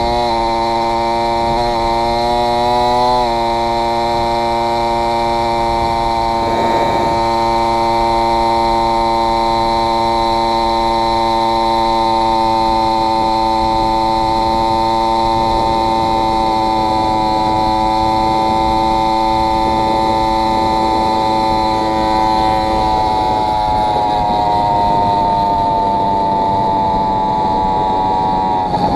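Two-stroke motorized-bicycle engine kit with an AF80 crank and 49 mm cylinder running at a steady cruising speed. Its note holds nearly constant pitch, wavers and dips briefly about three seconds in, and sags slightly near the end. The engine is running on two stacked base gaskets, a setup the owner found cost it power.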